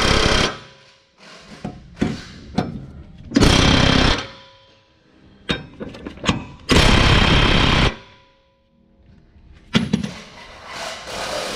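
Cordless impact wrench hammering on a mower blade's centre bolt, tightening it in three bursts: one right at the start, a short one about three and a half seconds in, and a longer one around seven seconds in. Smaller clicks fall in between.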